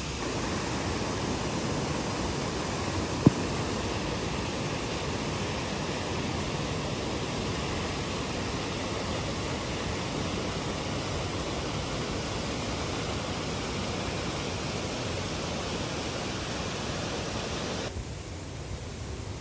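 Steady rushing noise, with a single sharp click about three seconds in. The higher part of the hiss drops away suddenly near the end.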